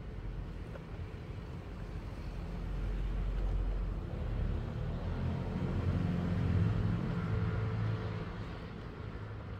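Low rumble of a passing motor vehicle's engine, growing louder about halfway through and easing off near the end.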